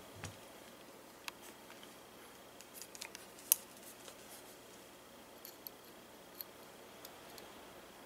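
Scattered small metallic clicks and clinks as a coiled steel washing-machine clutch spring, its metal sleeves and a pair of pliers are handled and set down on a table. The sharpest click comes about three and a half seconds in.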